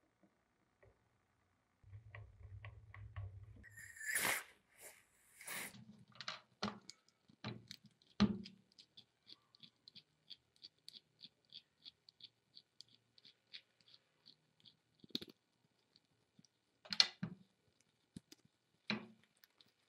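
Small steel drill-gearbox parts handled and turned by hand: clicks, brief scraping, and a run of even light ticks, about three a second, as the gear teeth are turned. A few sharper metal knocks near the end are the loudest sounds.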